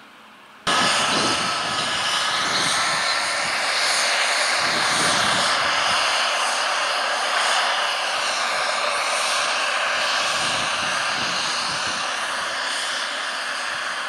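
John Deere 6215R tractor's six-cylinder engine working under load, pulling a 4 m Kuhn/Accord power harrow drill combination with the whir of the power harrow and drill. The sound starts suddenly about a second in and then stays steady and loud.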